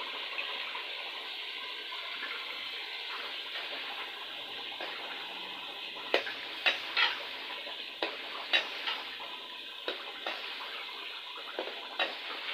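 Chicken and potato curry sizzling in a steel pot with a steady hiss as tomato paste goes in. From about halfway, a metal ladle stirs it, knocking sharply against the pot several times.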